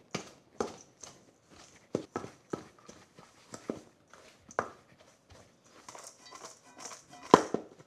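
Hand pastry cutter chopping butter into a crumble topping of flour, oats and brown sugar, its metal blades clacking and scraping against a stainless steel bowl. The clacks come irregularly, about every half second, and the loudest is near the end.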